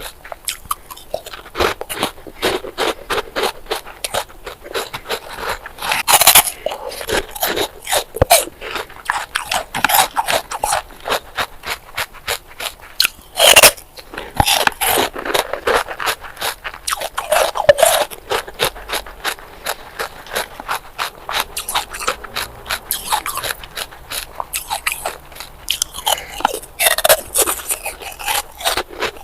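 Close-miked crunching of ice bars being bitten and chewed: a dense run of rapid crackling crunches, with a few louder, sharper bites breaking through along the way.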